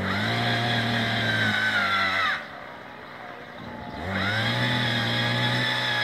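Petrol-engine earth auger boring a fence-post hole. Its engine runs at high speed, drops back to idle about two and a half seconds in, then revs up again about four seconds in.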